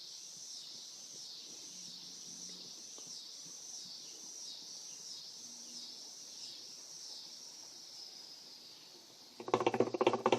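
Insects trilling in a high, steady chorus that swells and fades about twice a second, dying away near the end; a man's voice comes in briefly just before the end.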